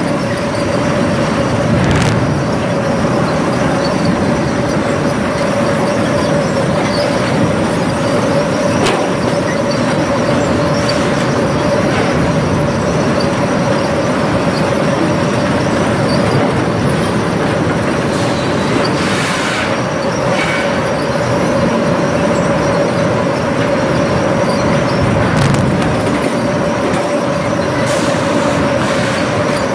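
Sawmill log-deck machinery running steadily: circular bucking saws and a lugged chain conveyor give a loud, even din with a constant tone, broken by a few short knocks and clanks of logs and steel.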